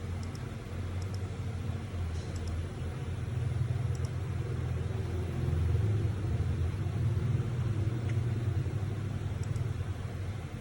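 CNC machine running a program: a steady low mechanical hum from its motors, growing louder for a few seconds in the middle, with a few faint ticks.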